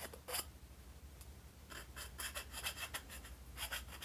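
Needle file rasping in quick back-and-forth strokes, squaring up the corner of a square hole cut in a round tube. A lone stroke comes first, then a pause of about a second before the strokes resume.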